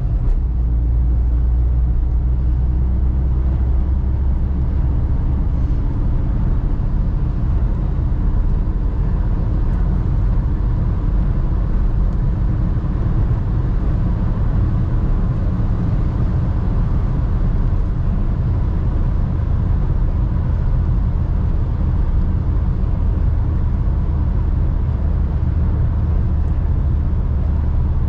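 Audi A3 1.8T's turbocharged four-cylinder engine driving at a steady pace: an even, unchanging low rumble of engine and road noise, with no revving or turbo flutter heard.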